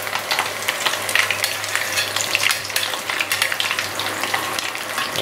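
Battered vegetable kakiage deep-frying in a small pot of hot oil: dense, steady sizzling with quick crackles and pops.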